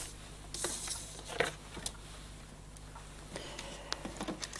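Oracle cards being handled and shuffled: a scattering of soft clicks and short papery swishes.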